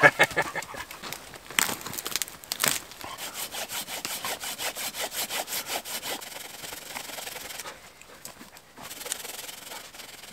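Folding hand saw cutting through a spruce log in even back-and-forth strokes, about three a second at its steadiest, with a short pause partway through. A few sharp clicks come right at the start.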